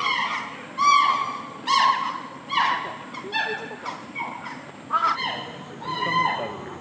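A chimpanzee screaming over and over, about one loud call a second, each call sliding down in pitch.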